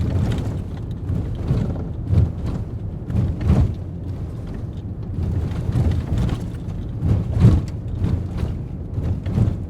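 Ford Raptor pickup truck driving, a heavy, uneven low rumble broken by knocks and jolts. The loudest jolts come about three and a half and seven and a half seconds in.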